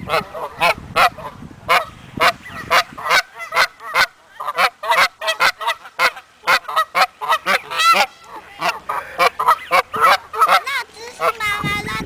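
Canada geese honking, a rapid, overlapping run of short calls, several a second.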